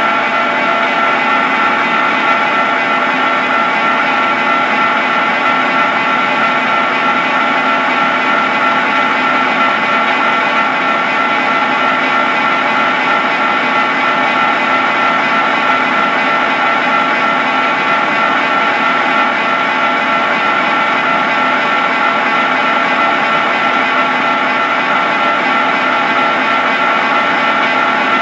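Barber-Colman 16-16 gear hobber running under power through its cycle: a steady mechanical whine with one prominent high tone over several lower ones, unchanging throughout.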